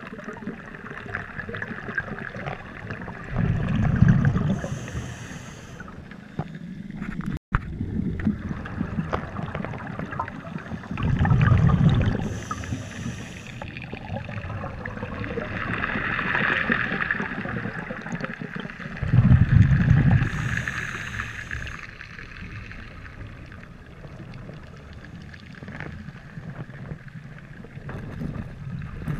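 Scuba diver breathing through a regulator underwater: three breaths about eight seconds apart, each a low rush of exhaled bubbles followed by a short high hiss from the regulator, over a steady crackling underwater background.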